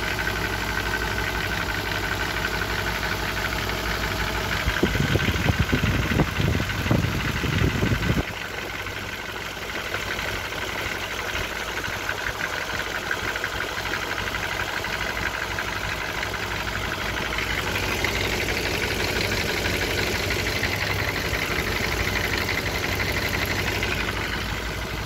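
BMW M50B20 2.0-litre straight-six idling with a persistent knock. The owner says the knock is not the hydraulic lifters. The timing chains, guides and tensioners are new and the VANOS has been rebuilt, yet the knock has stayed the same for years. The sound gets louder and rougher for a few seconds about five seconds in.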